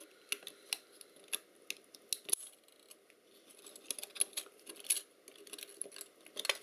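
A small screwdriver prying and scraping at the plastic frame holding a small camera mirror: a run of small irregular clicks and scratches, with a sharper click a little past the two-second mark.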